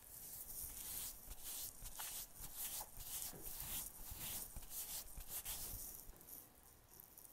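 Fingertips rubbing and pressing cotton sports tape down over a bearded mouth: a scratchy rustle of many quick strokes of tape and fingers over stubble, which stops about six and a half seconds in.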